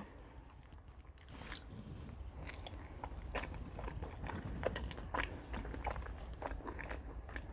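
A person biting into and chewing a deep-fried wonton, with many small irregular crunches and mouth clicks.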